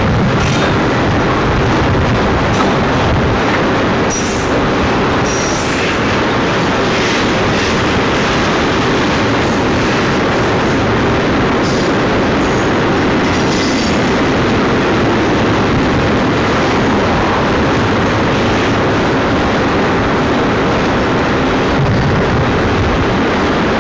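Double-stack container freight train's cars rolling past close by: a steady, loud rumble of steel wheels on rail, with a few brief high-pitched squeals, mostly in the first half.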